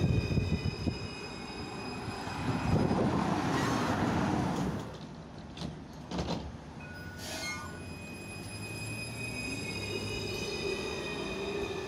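Yarra Trams C-class tram at a stop, its electric drive whining over a rumble. A short electronic beep sounds about seven seconds in, and near the end the whine rises in pitch as the tram starts to pull away.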